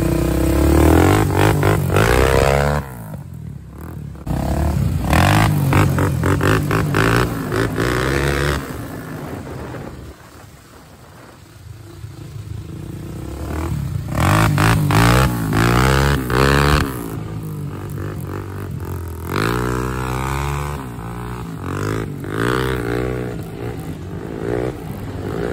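Honda 400EX ATV's single-cylinder four-stroke engine revving hard and easing off over and over as it is ridden, its pitch climbing and dropping many times. It quietens briefly about three seconds in, and again for a longer lull near the middle.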